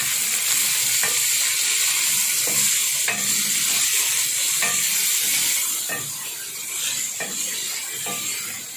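Shredded cabbage and onion sizzling in hot oil in a steel pan, stirred with a wooden spatula that scrapes and taps against the metal now and then. The sizzle eases a little past halfway.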